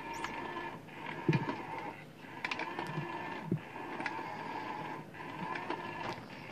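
Battery-powered Pop and Play cat toy's motor whirring inside its plastic dome as it drives the feather wand around and out through the holes. The motor runs in stretches of about a second broken by short pauses, with a few knocks on the plastic, the loudest about a second in.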